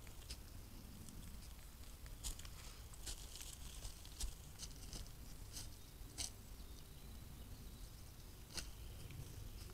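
Scattered light rustles and snaps of red deer stepping through dry leaf litter and twigs close by, about half a dozen in all, over a faint steady low hum.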